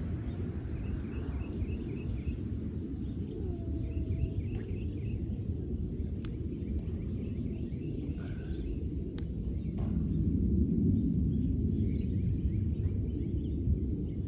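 Outdoor ambience: a steady low rumble, a little louder about two thirds of the way through, with short quick series of high chirps and a few faint clicks.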